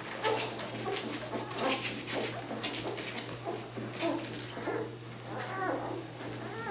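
A litter of nine-day-old Labrador puppies nursing: quick wet suckling clicks throughout, with a few short high squeaks and whimpers about five to six seconds in.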